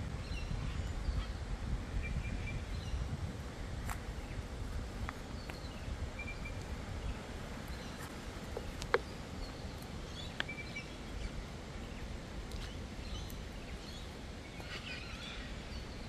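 Forest birds giving scattered short chirps and calls over a steady low rumble, with a few sharp clicks, the loudest about nine seconds in.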